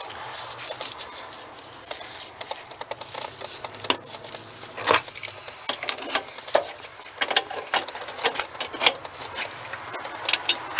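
Metal parts and hoses being handled and shifted while a heat exchanger is worked into a truck-mount unit's cabinet: irregular clicks, knocks and scrapes, getting busier and louder from about five seconds in.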